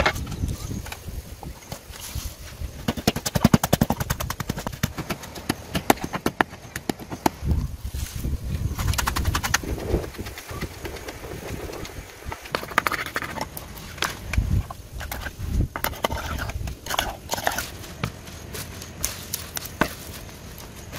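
Food preparation by hand: a knife tapping in quick runs on a wooden board, and a wooden pestle knocking in a clay mortar as shredded green mango is mixed, with scattered sharper clicks and a few dull thumps.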